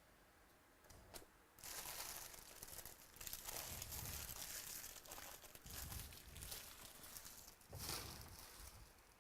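Trading card pack wrappers from 2017-18 Status basketball being crinkled and torn open. After a quiet start with a couple of light clicks, the crinkling runs on in swells.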